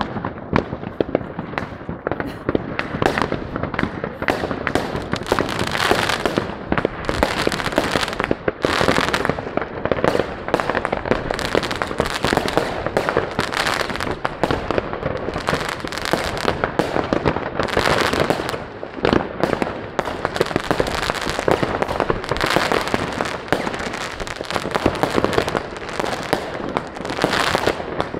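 Fireworks going off continuously: many overlapping bangs and crackles from aerial shells and firecrackers, with no pause.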